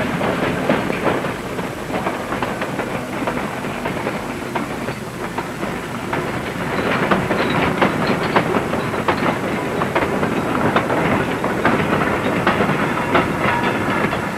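Freight train rolling into the yard, its wagon wheels clattering over rail joints in a dense, continuous run of clicks and knocks.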